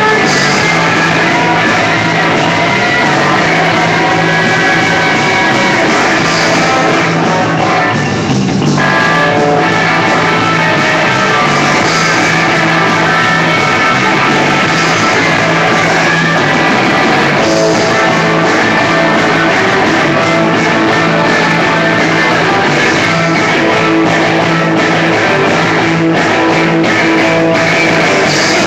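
Live rock band playing electric guitars and a drum kit, recorded through a phone microphone.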